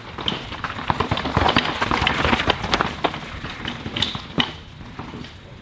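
Downhill mountain bike riding past over wet rocks and roots: a rush of tyre noise with sharp clattering knocks from the bike, loudest about two seconds in and then fading.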